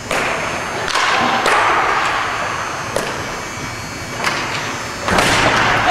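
Hockey sticks hitting on a hard rink floor: about six sharp clacks that ring on briefly in the arena, over steady rink noise.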